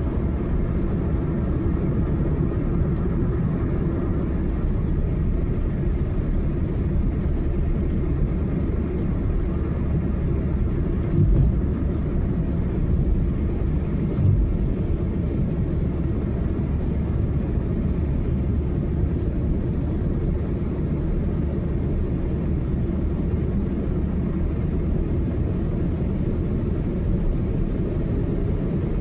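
Steady low rumble of a car driving on the highway, with two brief thumps about eleven and fourteen seconds in.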